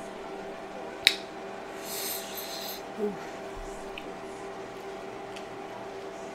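Close-miked eating sounds from a seafood boil picked up by hand out of a bowl of sauce: a sharp click about a second in, then a short wet rustle of the food being handled, over a faint steady hum.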